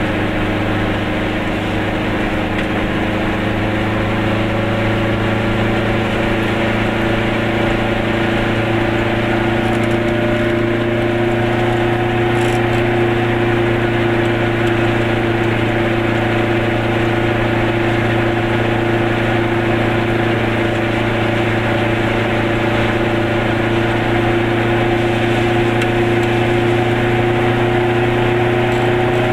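Goggomobil's small air-cooled two-stroke twin engine running steadily while the car drives, its pitch climbing slowly as it gathers speed.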